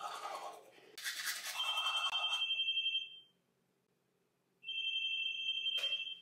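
A phone's electronic ringing tone: a high, rapidly trilling two-note tone that sounds twice, each time for about a second and a half, with a short gap between. Soft toothbrush scrubbing comes before the first ring, and a sharp click follows the second.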